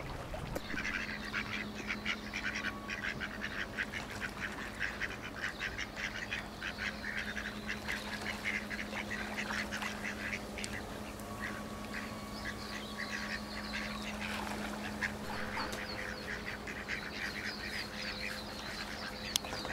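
A group of ducks quacking: many short calls in quick succession that thin out over the last few seconds.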